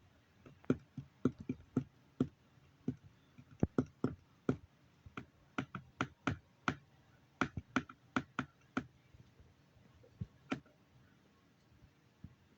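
A run of short, sharp clicks and taps at uneven spacing, about two dozen of them, mostly bunched in the first nine seconds, with a last one near ten and a half seconds.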